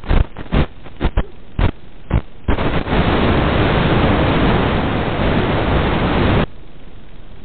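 Static from an analog 5.8 GHz FPV video receiver. Short loud bursts of hiss come as the signal breaks up, then continuous loud static for about four seconds as the feed is lost with the quad down in the grass, cutting off suddenly.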